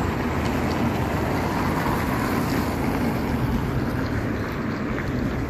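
Wind buffeting the microphone: a steady rumbling rush with an even hiss above it.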